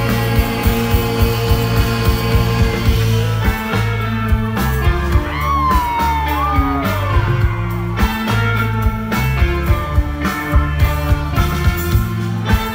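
Live rock band playing an instrumental passage: drums keeping a steady beat under bass, electric guitars and keyboard. About five seconds in, a high note slides downward for a couple of seconds.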